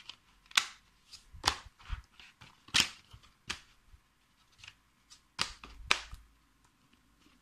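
Plastic DVD case and disc being handled: a series of sharp clicks and light knocks, spaced irregularly a second or so apart, as the disc is pressed on the case's centre hub and the case is shut.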